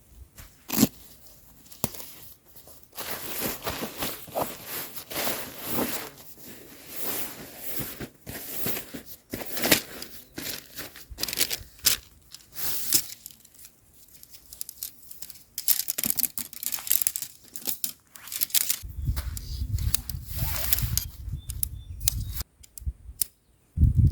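Irregular rustling and crinkling with sharp crackles, as of plastic sheeting or fabric being handled. From about nineteen seconds in, a low rumble joins it for a few seconds, and it returns near the end.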